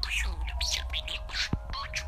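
Budgerigar chattering: a quick run of short, high chirps and squawks.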